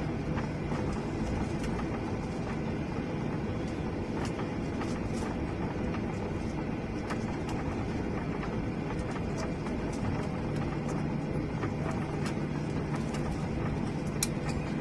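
Steady jet-engine and airflow noise of a Boeing 777 airliner: a constant rushing hum with a low steady drone, no rise or fall, and scattered small clicks.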